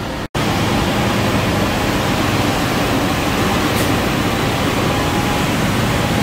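Large industrial floor fan running, a loud, steady, even rushing, after a momentary cut-out about a third of a second in.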